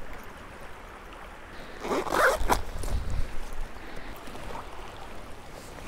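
A zipper drawn once, briefly, about two seconds in, with some handling thumps, over the steady rush of a fast river running high.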